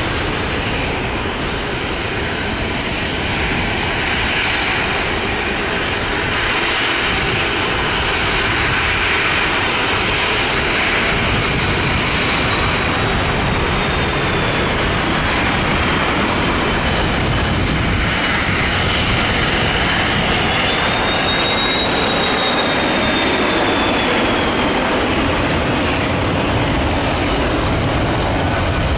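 An Airfast McDonnell Douglas MD-80-series jet's rear-mounted Pratt & Whitney JT8D engines running steadily on final approach and landing, getting a little louder as it nears. A high engine whine rises and then falls in pitch about two-thirds of the way through.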